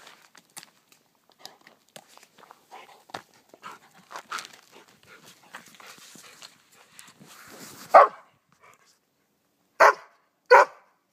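A dog barks three times near the end, loud short barks, the last two close together, after several seconds of soft clicks and rustling.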